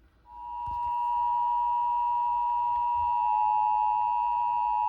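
NOAA Weather Radio warning alarm tone, the 1050 Hz alert tone, sounding as the weekly test of the alarm system: one steady high tone that swells in within the first second and then holds without a break.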